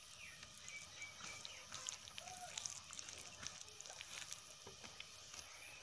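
Fingers mashing and mixing rice with vegetable dishes on a banana leaf, making soft wet squishes and many small, faint clicks.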